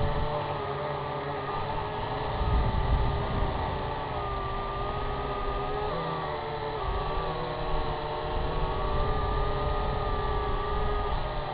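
Syma X8HG quadcopter's motors and propellers whining in flight, the pitch drifting up and down as the throttle changes, over a low, fluctuating rumble of wind on the microphone.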